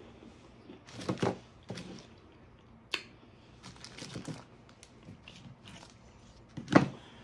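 Plastic and foil snack wrappers crinkling and rustling in short, scattered bursts as packets are shuffled on a table, with a sharp click a few seconds in and the loudest crinkle near the end.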